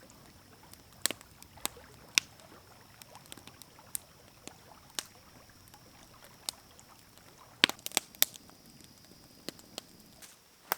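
Scattered sharp clicks and knocks at irregular intervals, a quick cluster of three near the end, over a faint steady high-pitched hum.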